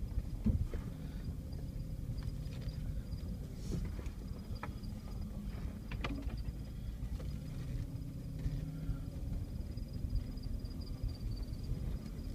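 Off-road vehicle's engine running at low speed, heard from inside the cab while it crawls over a rough dirt trail, with scattered knocks and rattles from the body over bumps. A faint steady high tone sits over it throughout.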